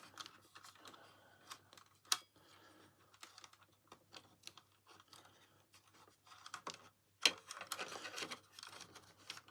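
Hand tools and small parts being handled and rummaged through on a workbench: irregular clicks, taps and rustling, with a sharp click about two seconds in and a louder knock about seven seconds in, followed by more rustling.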